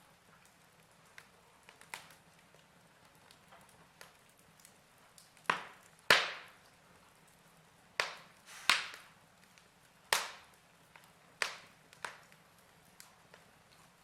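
Fire crackling with sharp, irregular pops, the loudest about six seconds in.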